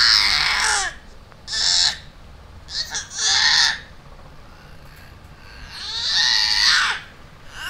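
A baby shrieking: four short, high-pitched screeches spread over a few seconds, with quiet gaps between them.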